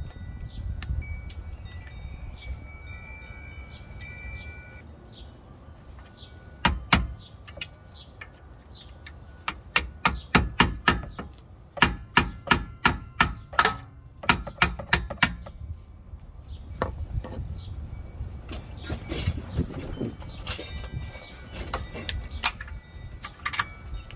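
Sharp metal-on-metal strikes, each ringing briefly, as a screwdriver is worked against the cut metal sleeve of a worn-out rear lower shock bushing to free it from the knuckle bore. One strike comes alone, then quick runs of several at about three a second, then more scattered strikes.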